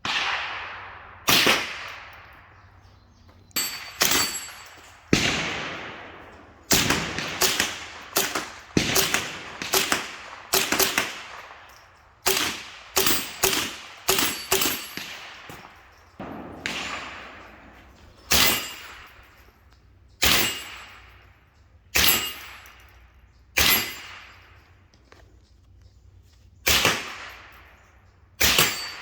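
Suppressed Smith & Wesson M&P15-22 .22 LR rifle fired about two dozen times at an uneven pace, some shots in quick runs of three or four, each a sharp crack with a short echoing tail.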